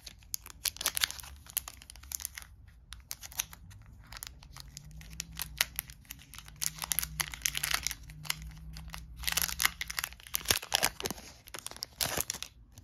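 Clear cellophane shrink-wrap on a deck of playing cards crinkling and tearing as it is handled and pulled open, in irregular bursts of crackles.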